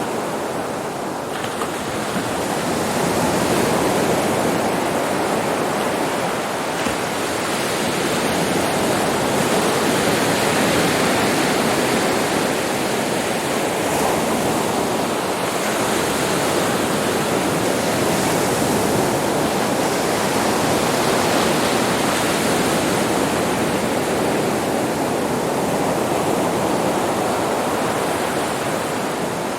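Sea waves breaking and washing on a beach, a continuous surf with slow swells in level every few seconds.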